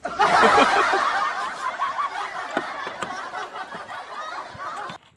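Laughter from many voices at once, a canned laugh track, coming in suddenly, fading a little and cutting off abruptly near the end.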